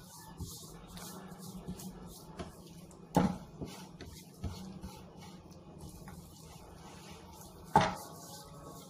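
Hands working seasoning into raw chicken thighs on a cutting board: soft wet handling noise with a few light ticks, and two sharp knocks of the meat or hands against the board, about three seconds in and near the end.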